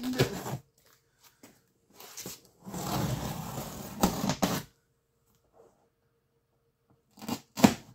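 Utility knife scraping and sawing at the plastic strapping band on a cardboard box, with a longer rough scuffing rub of blade and cardboard partway through and a few sharp clicks near the end.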